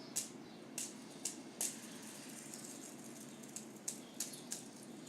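Fidget spinners being handled: light, irregular clicks and taps, about eight in all, over a faint steady hum.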